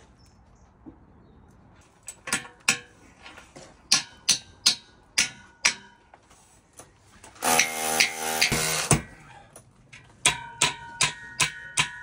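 Hammer striking a steel bricklaying profile and its wall fixing: a string of sharp blows, then a power tool running for about a second and a half, then a quicker run of blows near the end that ring like struck metal.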